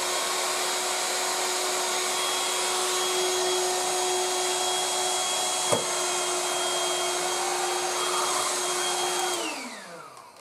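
Tefal Dual Force TY6751 cordless stick vacuum running on the higher of its two suction powers: a steady motor whine over rushing air. One short click comes a little past halfway. Near the end the motor winds down, its pitch falling away.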